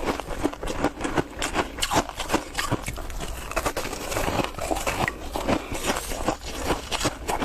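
Close-up chewing of ice, with a rapid, irregular run of sharp crunches and cracks as the ice breaks between the teeth.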